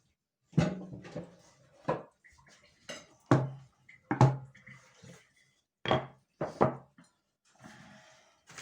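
Kitchenware knocking and clattering: about eight sharp, irregularly spaced knocks, each with a brief ring, as dishes and utensils are handled.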